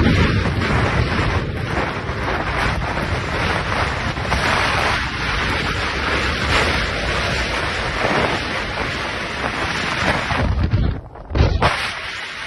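Strong storm wind gusting over the microphone in a snowstorm, a dense rushing noise, broken by a brief drop about eleven seconds in.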